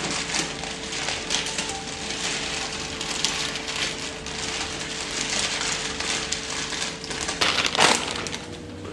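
Plastic packaging crinkling and rustling as groceries are handled, loudest in a burst near the end, over a steady hum.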